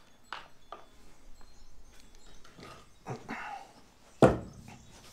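Light knocks and clatter of things being handled, then a single heavy thud about four seconds in.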